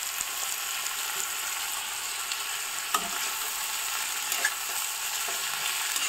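Sliced flat beans, potato and onion frying in mustard oil in an iron kadai: a steady sizzle, with a few light clicks.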